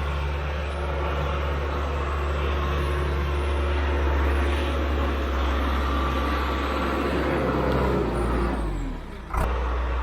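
Heavy equipment engine running steadily as a low drone while the machine works. Near the end the sound drops away for about a second, then comes back suddenly with a sharp click.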